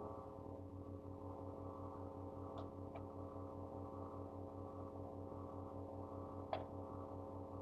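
Steady electrical hum and buzz with a rapidly pulsing low drone, coming in at the start, with a few faint ticks.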